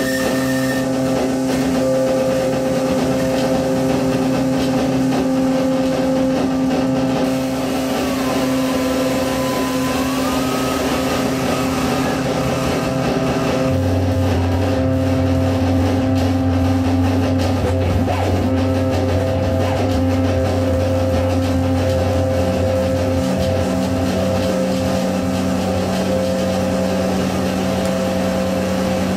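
Live electronic drone music: several steady, held tones layered together. A higher tone dips and slides back up about eight to eleven seconds in, and a deep bass tone joins about halfway through.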